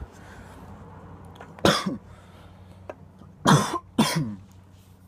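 A person coughing three times after a hit of smoke from a small glass bubbler: one cough about a second and a half in, then two close together near the end.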